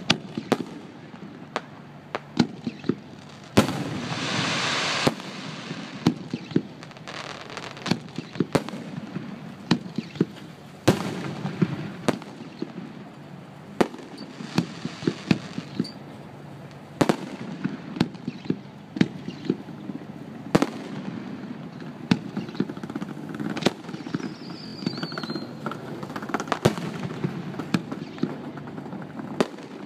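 Aerial firework shells bursting one after another in a display, a run of sharp bangs at irregular intervals over a low rolling rumble. About three and a half seconds in, a loud hiss lasts for about a second and a half.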